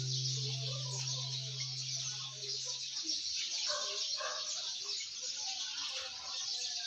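The last guitar chord of the background music rings out and fades over the first three seconds. After that there is a steady high hiss with scattered short bird calls.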